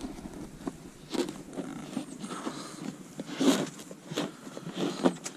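Rustling and clicking of hands working a dash cam wire into plastic trim and door rubber, with a couple of sharper knocks about three and a half and five seconds in.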